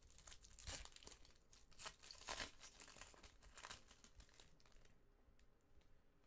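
Faint crinkling of a foil trading-card pack wrapper being handled, a run of quick crackles that thins out after about four seconds.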